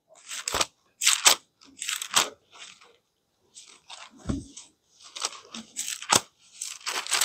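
Bible pages being turned and rustled, a string of short, crisp paper rustles and crackles with a brief pause about three seconds in.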